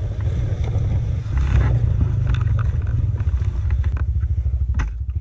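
Honda TRX400X ATV's engine running as it rides off down the trail, over a close, steady low rumble.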